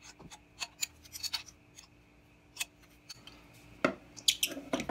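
Steel wrench, double nuts and stud clicking and scraping as a seized stud is unscrewed from a cylinder head. Scattered metallic ticks give way to a quick run of clinks near the end, as the loosened stud is spun out by hand.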